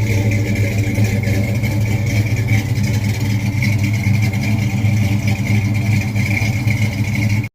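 An engine running steadily and loudly at an even pitch, cutting off abruptly near the end.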